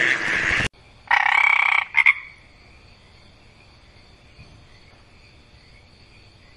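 A loud, rough sound cuts off suddenly under a second in. A croaking animal call follows about a second in, lasting most of a second, then a short second croak. After that only a faint steady high hum is left.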